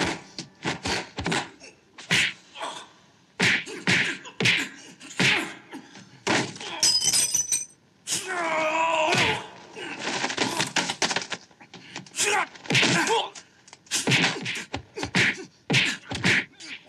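Kung fu film fight sound effects: a rapid, irregular run of sharp punch and kick impacts and whooshes, with fighters' grunts. About eight seconds in, one drawn-out cry rises and falls in pitch.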